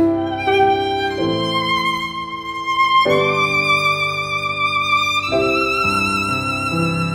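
Slow instrumental background music: long held melody notes with vibrato over a sustained accompaniment, the harmony changing about every two seconds.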